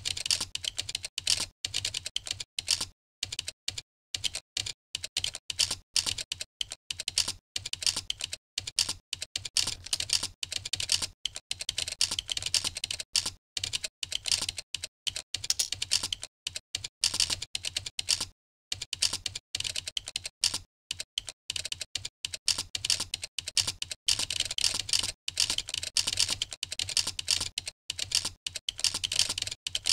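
Typing on a computer keyboard: a rapid, steady run of keystrokes with a few brief pauses between commands.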